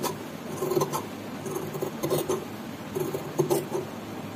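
Large tailoring scissors snipping through a folded white pattern sheet: a series of short, crisp cuts, about seven in all at an uneven pace.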